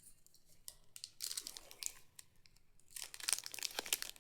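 Plastic-foil chocolate wrapper crinkling and tearing, in two bursts of crackly rustling, one about a second in and one near the end.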